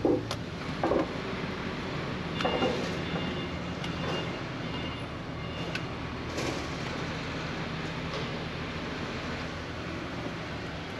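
Heavy truck's diesel engine running, heard from inside the cab, with a handful of short sharp clicks and knocks in the first several seconds and a faint high tone for a few seconds in between.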